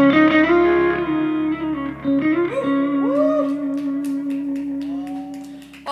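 The final notes of a live ballad ring out over its instrumental accompaniment, with a short sung glide. Several hand claps follow from about halfway in as the song ends, and the sound fades out near the end.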